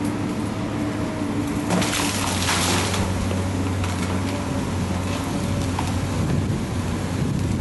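Heavy demolition machinery, a diesel engine running steadily, with a loud crunch of breaking building material and falling debris from about two to three seconds in.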